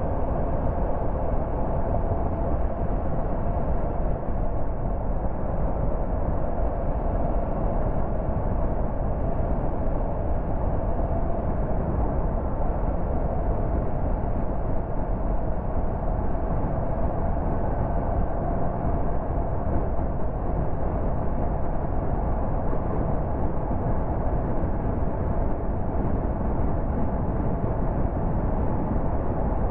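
Steady road noise of a car driving on a motorway: tyres on asphalt and wind, with a faint steady hum.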